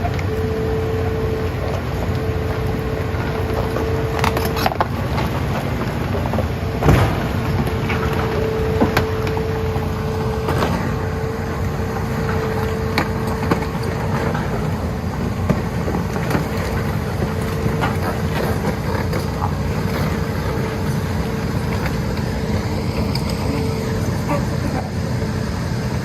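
Hitachi Zaxis 210 hydraulic excavator running steadily, with a constant whine and a few sharp clanks, the loudest about seven seconds in.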